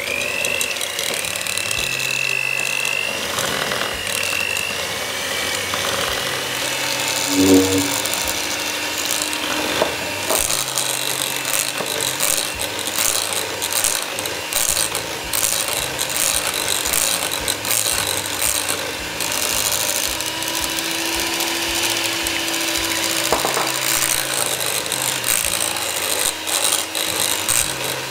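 SilverCrest electric hand mixer running steadily, its twin beaters creaming butter, sugar and eggs in a glass bowl, with rapid clicking and rattling over the motor's whirr.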